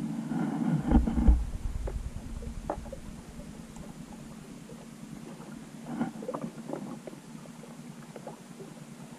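Muffled underwater sound picked up by a GoPro in its waterproof housing: a low rumbling surge of water with knocks about a second in, and scattered short clicks and knocks around six seconds in, over a steady low hum.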